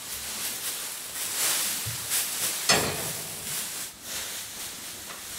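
Pitchfork tossing straw bedding in a horse stall: rustling swishes of dry straw, with one sharp knock about halfway through.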